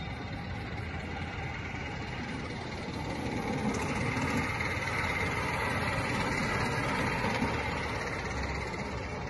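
5-inch gauge live steam model of an LNER B1 locomotive running on a miniature railway with a rider aboard: a steady mix of steam working and wheels on the rails, growing louder as it comes close about halfway through, then easing as it draws away.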